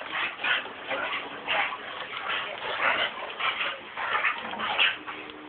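An American bulldog and a Weimaraner playing tug of war, with a dog making short, repeated vocal sounds, a few a second.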